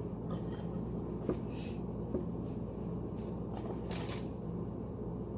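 Faint, soft scraping and tapping as a ball of chilled cookie dough is rolled in a bowl of cinnamon sugar, over a steady low hum; one slightly louder brief scrape comes near four seconds in.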